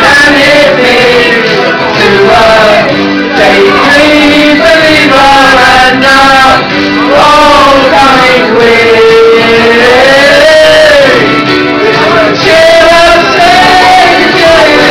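A man and a woman singing a karaoke duet into microphones over a backing track, picked up very loud.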